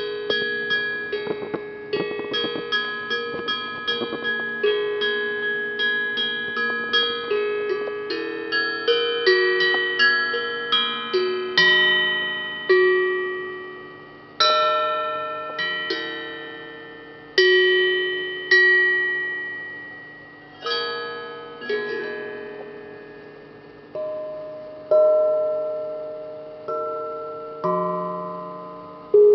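A hamon, an iron folk instrument, played melodically: bell-like struck notes that ring on and fade. Quick runs of several notes a second give way after about twelve seconds to slower, single ringing notes.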